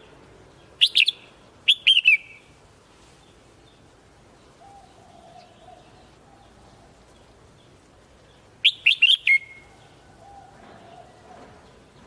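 Red-whiskered bulbul singing loud, short phrases of a few quick notes. Two phrases come about one and two seconds in, and a four-note phrase comes about nine seconds in.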